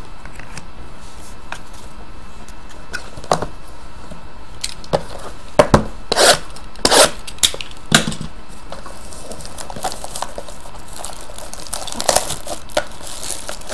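A trading card pack torn open by hand: sharp rips and crinkles of the plastic-foil wrapper come in a cluster about halfway through and again near the end. Underneath is a steady background hiss.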